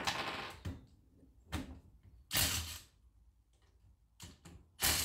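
Cordless drill-driver run in about five short trigger bursts, backing bolts out of a ride-on mower's hydrostatic drive casing. The last burst, near the end, is the loudest.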